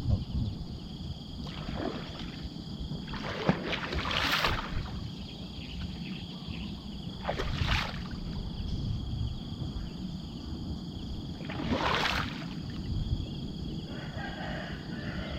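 Water splashing and sloshing as a gill net is hauled into a small boat, with three louder swishing splashes a few seconds apart. A steady high chirring of insects runs underneath.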